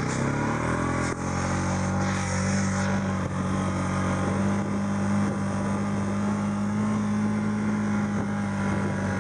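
Small off-road utility vehicle's engine picking up speed during about the first second, then running steadily under load as it drives up a dirt trail.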